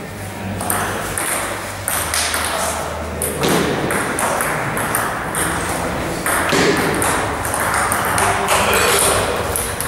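Table tennis rally: a celluloid ball clicking sharply off rubber-faced bats and the table, several hits in quick succession.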